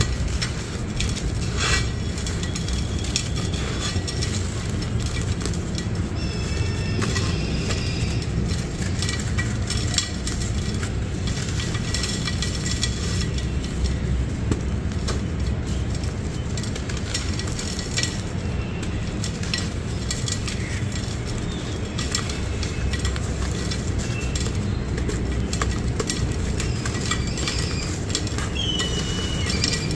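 Dry sand-cement chunks crushed and crumbled by hand in an unglazed clay pot: continuous gritty crunching and crackling as the lumps break and the grit rubs against the pot. A steady low rumble runs underneath.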